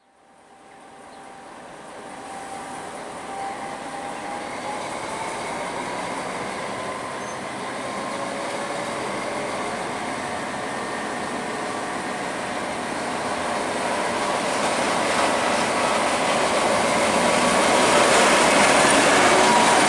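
ČD class 754 'Nurek' diesel-electric locomotive hauling a passenger train as it comes into the station. The sound fades in and grows steadily louder as the locomotive draws near and runs alongside, with thin squealing tones over the rumble.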